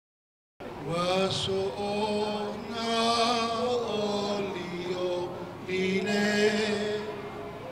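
A man chanting in long, held, slightly wavering notes, phrase after phrase with short breaks, starting about half a second in.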